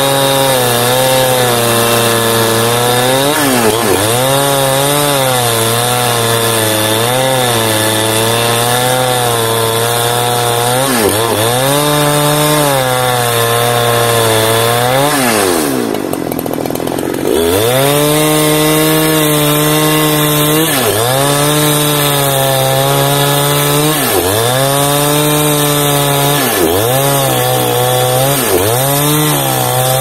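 Large two-stroke chainsaw crosscutting a felled teak log at high revs, its pitch sagging and recovering every second or two as the chain bogs in the wood. About halfway through it eases off for a second or so, then revs back up into the cut.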